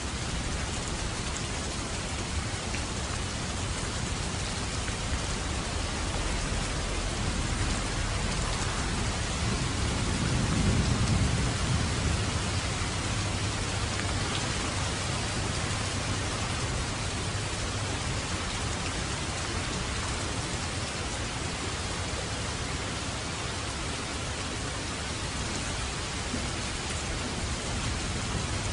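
Steady rain, with a low roll of thunder swelling and fading about ten seconds in.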